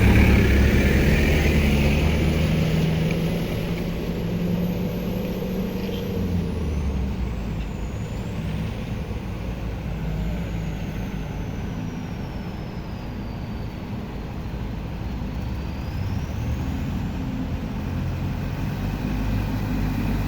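Heavy diesel vehicle engine running. It is loudest at the start, dies down through the middle and grows louder again toward the end.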